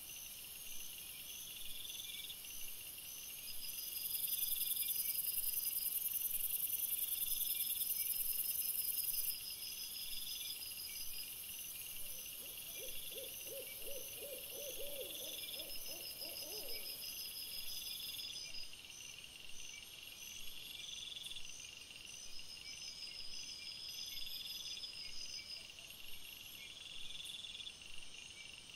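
Night insects chirping in a steady repeating pattern, with a stretch of louder high hiss from about four to nine seconds in. About halfway through, a low quavering call with rapid pulses lasts four to five seconds.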